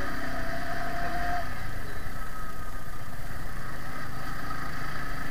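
Sport motorcycle engine running steadily in second gear at low road speed, with road noise.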